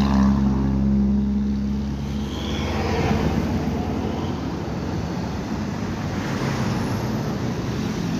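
Road traffic: a steady engine hum for about the first two seconds, then the even noise of motorcycles and cars passing.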